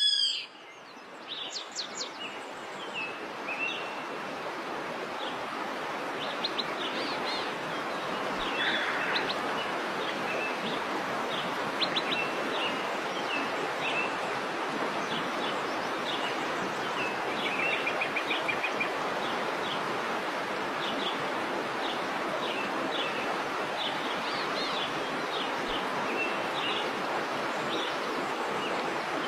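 Steady rush of a waterfall, growing louder over the first several seconds and then holding, with birds chirping and trilling over it throughout.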